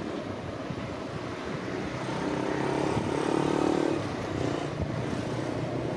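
Engine of a passing vehicle, swelling to its loudest about three and a half seconds in and dropping away just after, over wind rumbling on the microphone.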